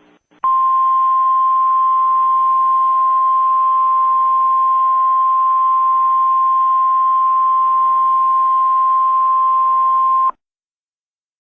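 Emergency Alert System attention tone: a single steady tone near 1 kHz held for about ten seconds over a radio-like hiss, starting and cutting off abruptly, signalling that an alert message follows.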